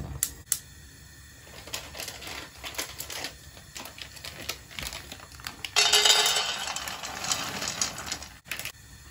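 Shelled peanuts poured from a plastic bag into a nonstick frying pan: a dense rattle about six seconds in that lasts a little over two seconds and stops abruptly. Before it, scattered light clicks.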